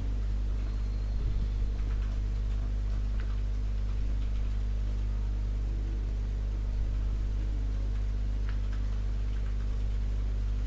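A steady low hum with a few faint light ticks.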